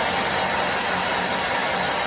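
A machine running steadily: an even noise with a low hum that pulses gently.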